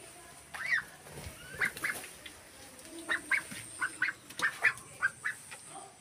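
Pet love birds (small parrots) in an aviary giving a string of short, high calls, about a dozen over several seconds.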